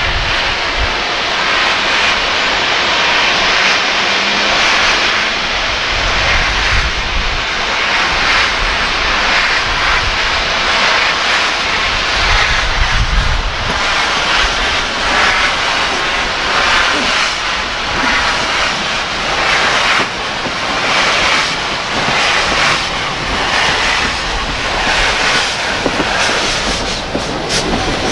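BR Standard Class 5 4-6-0 no. 73156, a two-cylinder steam locomotive, pulling away with a train. Its exhaust beats chuff over a constant hiss of steam from the open cylinder drain cocks. The beats grow more distinct as it approaches.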